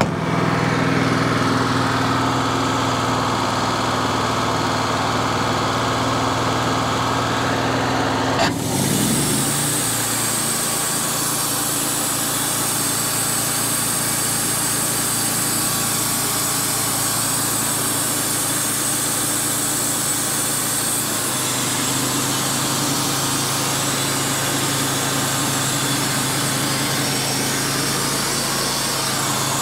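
Wood-Mizer band sawmill running steadily. About eight seconds in the band blade enters the walnut log, and a constant cutting hiss joins the engine sound from then on.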